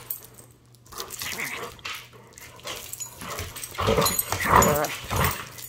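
A dog vocalizing during tug-of-war play with a toy, in a few short bursts in the second half.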